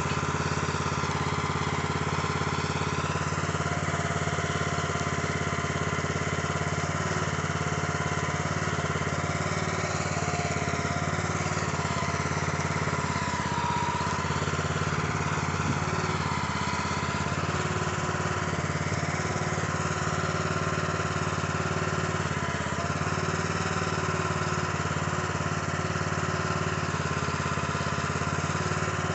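Small gasoline engine of a Harbor Freight trencher/backhoe running steadily, with higher tones that waver up and down as the hydraulic backhoe is worked digging a trench.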